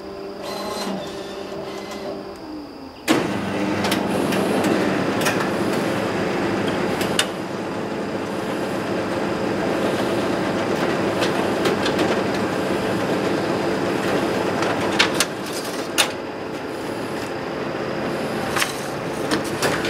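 Large office copier with a finisher running a two-sided copy job. A low hum at first, then about three seconds in the paper drives start all at once with a loud, steady mechanical whirr and rattle, broken by a few sharp clacks as the pages feed through and come out into the finisher tray.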